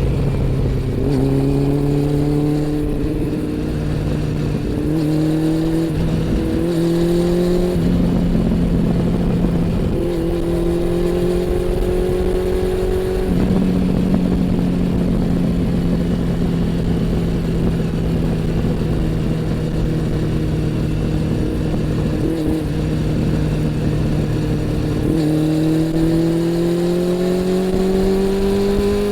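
Honda CB400 Super Four's inline four-cylinder engine and exhaust under way. The engine pitch climbs through the gears and dips at each upshift several times in the first half, holds fairly level for a long stretch, then rises again near the end.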